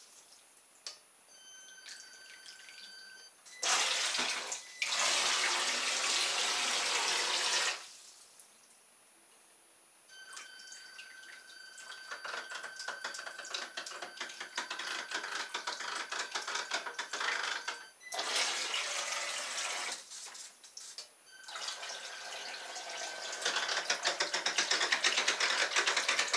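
Small electric motor of a toy radio-controlled boat running in several spells, stopping and starting, with a faint high whine while its propeller churns the water.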